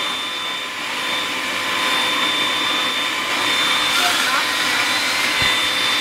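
Vacuum cleaner running steadily, a rushing hiss with a high whine over it.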